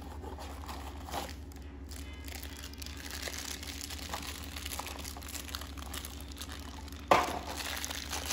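Crinkling and rustling of a blind-box figure's foil bag and cardboard box being handled and opened, with one sharp, louder crackle about seven seconds in.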